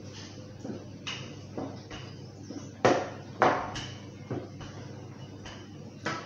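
Wooden rolling pin working bread dough on a floured wooden worktop: a string of short knocks and thuds as the pin is pressed and rolled against the board, the loudest two about three seconds in.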